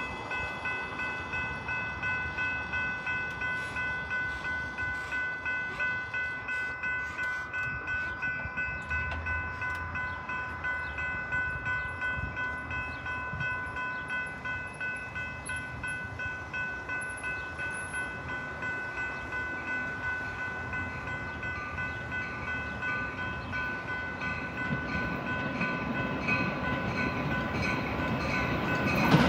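A railroad grade-crossing bell ringing in steady, regular strokes while a Metra commuter train approaches. The train's rumble grows louder near the end as it reaches the crossing.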